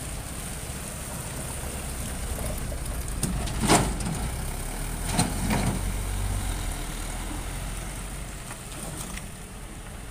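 Light trucks and a small box van driving past on a rough road, their engines running. Two short, loud sharp noises cut through about four and five seconds in.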